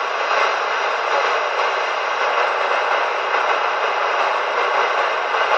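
Steady static hissing from a Galaxy DX 949 radio's speaker, unbroken by any voice.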